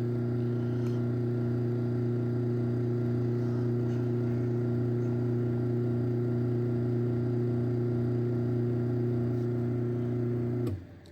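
Chamberlain B353 belt-drive garage door opener motor running steadily as it opens the door, a constant hum that stops suddenly near the end as the door reaches its limit.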